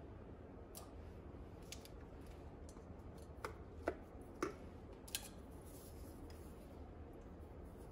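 A few short clicks and knocks as a lid is fitted and snapped onto an insulated tumbler. The loudest come about four and five seconds in, over a faint steady hum.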